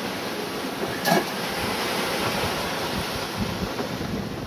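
Rush of waves and sea spray around a sailing yacht under way, with wind buffeting the microphone. A brief sharp sound stands out about a second in.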